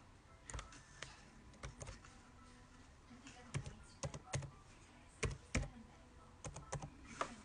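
Computer keyboard keystrokes, about a dozen faint, irregularly spaced key clicks as a password is typed.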